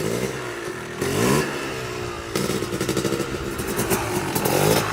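Motorcycle engine revved twice, rising in pitch each time, then running at a steadier pitch with a rapid crackle.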